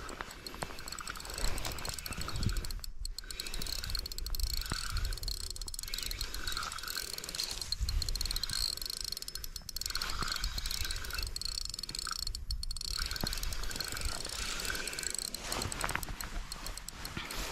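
Spinning reel being cranked to retrieve a lure, its gears whirring steadily, with several brief pauses in the winding.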